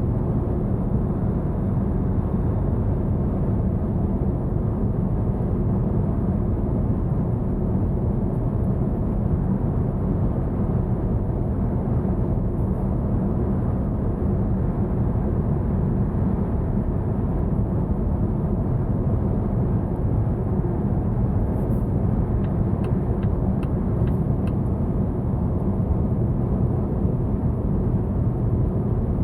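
Cabin of a Volvo V90 at highway speed on electric power only ("Pure" mode): steady low road and tyre rumble with wind noise and no engine running. A few faint ticks come about three-quarters of the way through.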